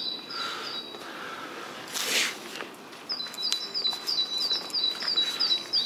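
A small songbird calling in a quick series of short, high, downward-gliding chirps, about four a second, heard near the start and then steadily from about three seconds in. About two seconds in there is a single brief rustle or scuff.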